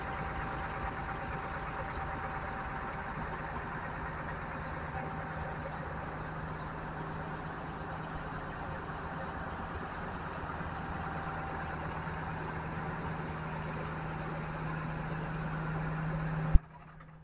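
TTC city buses idling at a bus platform: a steady engine drone with a low hum that grows a little louder near the end. A sharp click, the loudest moment, comes near the end, and the sound cuts off suddenly after it.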